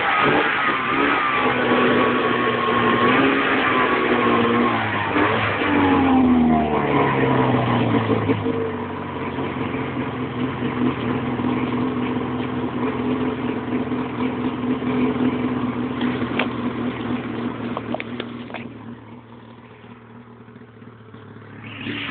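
Lynx GLX snowmobile engine running under throttle while riding, its pitch rising and falling over the first several seconds, then holding steadier. About three seconds before the end it drops back to a much quieter level.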